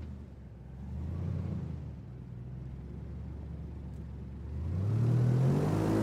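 Hovercraft engine running low and steady, then revving up from about four and a half seconds in, rising in pitch and growing louder.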